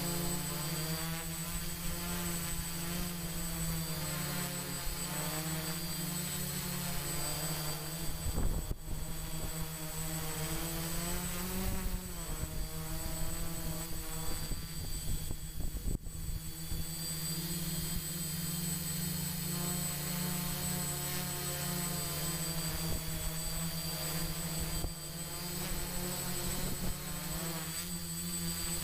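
Electric motors and propellers of a radio-controlled multirotor in flight: a steady buzz whose pitch wavers up and down as the throttle changes, with a thin high whine running through it.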